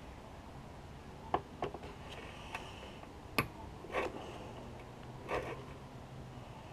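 A few light metallic clicks and taps, some with a brief ring, as a driver works at the stubborn butterfly-plate screws inside a Subaru TGV housing.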